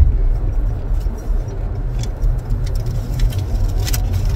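Steady low road and engine rumble inside a moving car's cabin, with a couple of faint clicks partway through.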